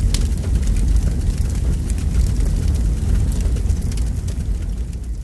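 Sound effect of a fire burning: a steady low rumble of flames with scattered crackles.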